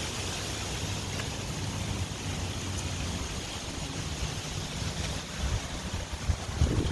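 Wind noise on the microphone: a steady rushing rumble.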